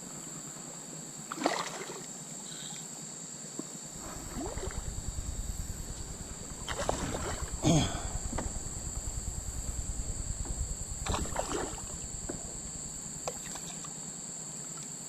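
Kayak paddling on a river: several short paddle splashes and water sounds, with a low, rapidly pulsing rumble through the middle. A steady high-pitched insect drone runs underneath.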